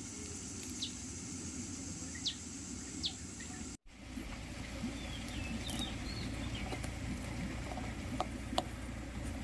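Outdoor birdsong: short sharp chirps about once a second over a steady high hiss. The sound breaks off for a moment about four seconds in, then continues as twittering birds with a few light clicks.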